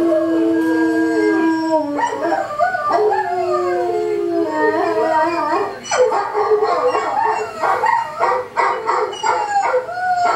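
A dog howling in long held and sliding notes, breaking into shorter, choppier cries after about six seconds.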